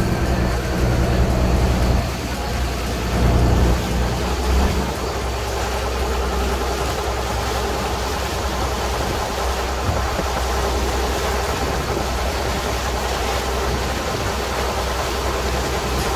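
Boat engine running steadily, a constant low rumble under a rushing noise.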